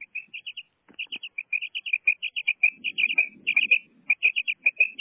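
Female common quail calling: a rapid, continuous run of short, high chirping notes in quick clusters of three or four. A low background noise rises under it from about halfway through.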